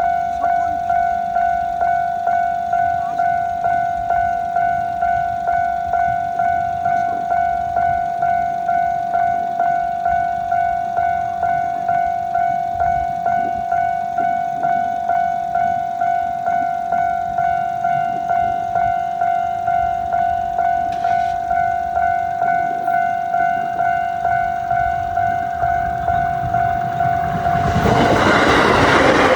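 Japanese railroad crossing alarm ringing a steady repeating ding-ding at one pitch. About two seconds before the end, a passing train's running noise rises and covers the bell.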